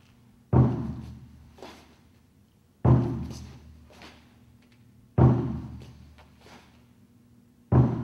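A drum struck four times at a slow, even pace, one deep booming beat every two and a half seconds or so, each ringing away over about a second. It is the beat that counts off the movements of the form. A fainter knock follows about a second after each beat.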